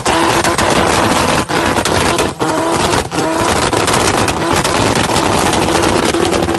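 Mazda RX-7 rotary engine held at high revs through a burnout, the rear tyre spinning, with a rapid crackle from the exhaust and a few brief dips in the engine note.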